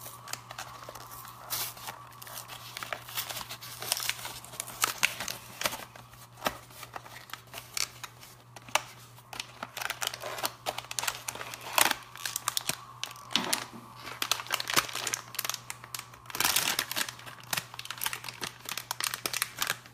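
Blind-box toy packaging being opened by hand: the wrapper crinkles and tears in a steady stream of irregular crackles, with a louder burst about twelve seconds in and a longer stretch near the end.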